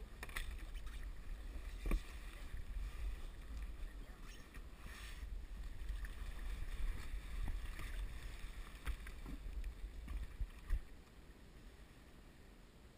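Low wind rumble on a kayak-mounted action camera's microphone, with a few sharp knocks of the boat and gear, getting quieter after a last knock near the end.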